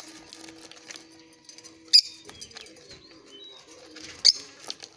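African lovebirds calling: faint chirps, with two loud, shrill calls about two seconds in and again near the end.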